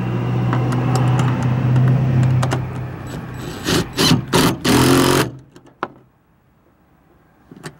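Cordless DeWalt impact driver running a nut down a seat-mounting bolt with a steady motor hum, then hammering in three or four short, loud bursts as the nut pulls tight. It cuts off suddenly about five seconds in.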